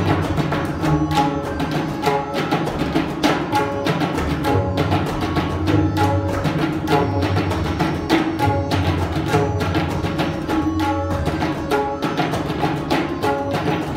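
A group of tabla players playing a rela in teentaal together: fast, continuous runs of strokes, with ringing pitched strokes from the right-hand drums over deep bass strokes from the left-hand bayans.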